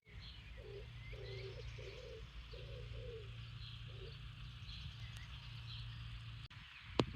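A bird giving a series of about six short, low calls in the first four seconds, with faint high chirps of other birds and a steady low hum behind.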